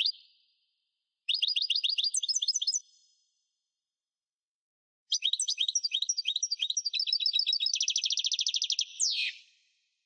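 European goldfinch singing: bursts of rapid, high twittering notes in separate phrases. The last and longest phrase ends in a fast trill and a falling note.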